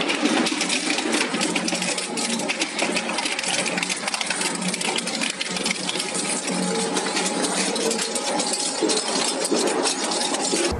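Shredding machine running, a dense, rapid clatter and crackle of material being broken up, with no let-up.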